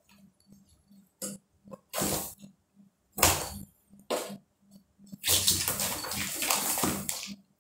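A cat scrabbling at and inside a cardboard box: three short bursts of cardboard scratching and rustling, then a longer one of about two seconds near the end.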